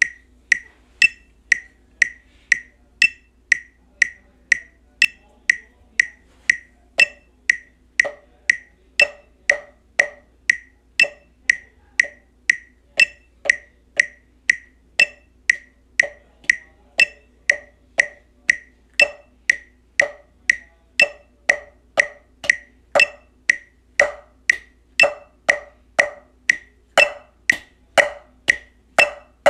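Metronome clicking steadily at about two clicks a second, with an accented click every fourth beat. From about eight seconds in, a duller knock lands together with most of the clicks.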